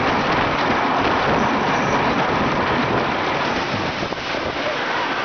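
Wooden roller coaster train running along its track: a steady rushing noise of wheels and wind on the microphone, easing slightly about four seconds in.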